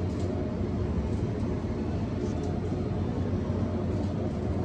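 A steady low rumble with a faint hum running through it, like vehicle or traffic noise.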